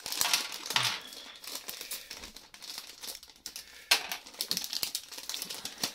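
Thin plastic Lego polybag crinkling and tearing as it is pulled open by hand, loudest in the first second, then scattered small rustles and clicks. About four seconds in comes one sharp click as a small plastic Lego piece drops onto the baseplate.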